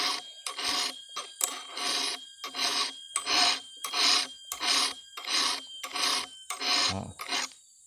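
Round chainsaw file rasping across a cutter tooth on a Stihl 070's chain, in even strokes about one and a half a second, each forward stroke cutting, stopping near the end.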